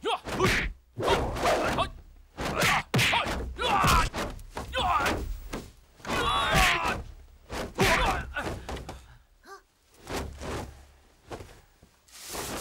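Kung fu fight sound effects: a fast run of punch and kick thuds and whooshes, mixed with the fighters' grunts and yells, thinning out near the end.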